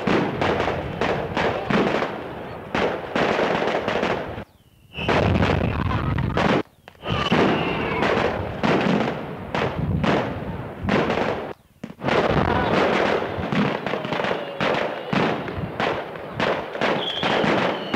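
A mascletà of firecrackers strung on cords, going off in a rapid, crackling string of bangs, several a second. The bangs stop briefly three times.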